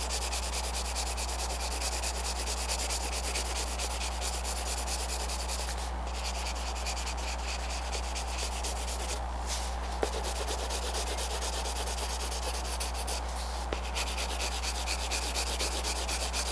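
Colored pencil scratching on paper in rapid shading strokes, breaking off briefly three times. A steady low electrical hum runs underneath.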